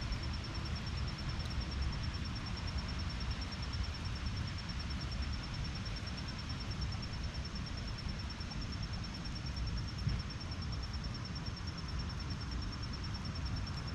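Steady outdoor ambience: a constant hiss with a low rumble under it, and an insect trilling at a high, even pulse. A single faint knock comes about ten seconds in.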